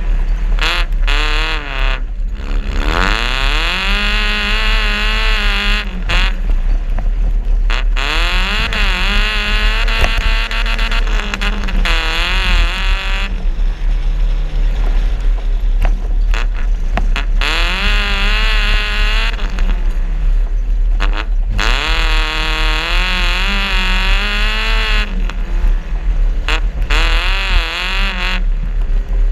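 Suzuki Vitara 2.0 engine revving up and down repeatedly under hard off-road driving, its pitch climbing and dropping again and again as the throttle is worked, over a heavy low rumble.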